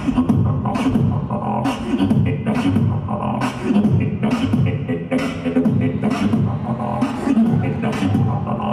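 Live solo beatboxing through a microphone and PA: a hummed, bending bass line under sharp snare-like hits in a steady beat.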